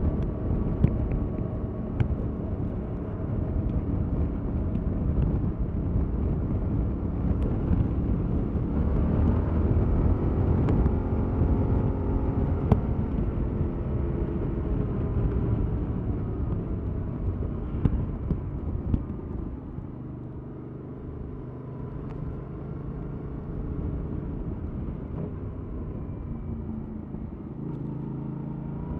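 Yamaha MT-07's 689 cc parallel-twin engine with its stock exhaust, heard while riding under a low rumble of wind and road noise, the engine note rising and falling with the throttle. About two-thirds of the way in it drops to a quieter, steady low note, then begins to rise again near the end.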